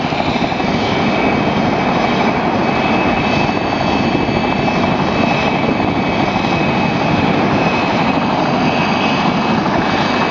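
PZL Mi-2 helicopter hovering close by: steady loud rotor noise with a constant high whine from its twin turboshaft engines.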